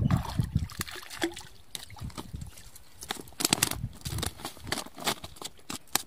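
A hooked rohu splashing at the surface as it is drawn in, then a run of sharp, irregular slaps and knocks, thickest in the second half, as the landed fish thrashes on the bank.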